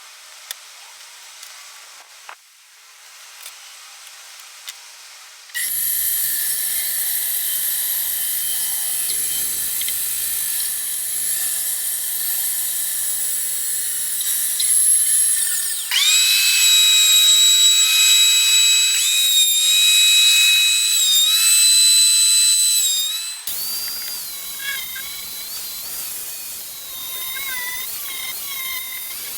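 A small high-speed power tool whining. It starts about five seconds in, changes pitch and gets louder around the middle, then runs quieter with a wavering pitch for the last few seconds.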